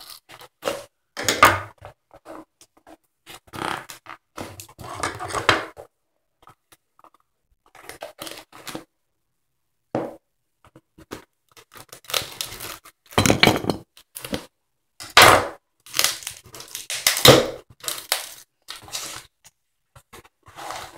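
Tape-wrapped cardboard parcel being worked open by hand: irregular bursts of tearing, scraping and crinkling with short pauses, louder and more frequent in the second half.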